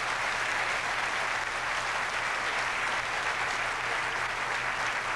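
Theatre audience applauding steadily, dense clapping from a large crowd.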